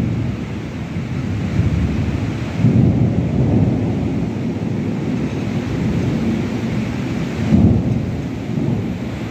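Heavy rain in a windy storm, a continuous rushing hiss with deep rumbling swells about two and a half seconds in and again near the end.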